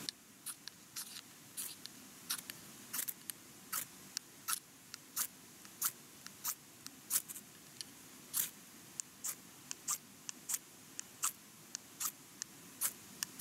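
A long series of sharp, short clicks or snips, roughly one to two a second and uneven in strength.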